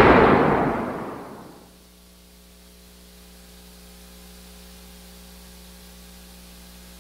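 The dance music ends, its last loud, noisy sound dying away over about the first second and a half. It leaves a steady low electrical hum with a faint hiss.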